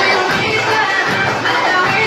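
Loud party music playing continuously, with the din of a crowd beneath it.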